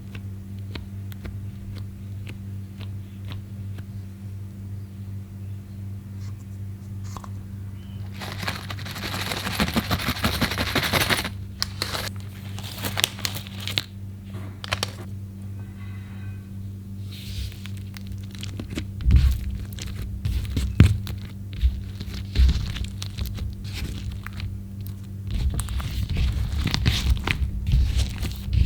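Clear slime being squished and mixed by hand, with crackling, popping and squelching. It comes in bursts, a long run about a third of the way in and a busier stretch over the second half, over a steady low hum.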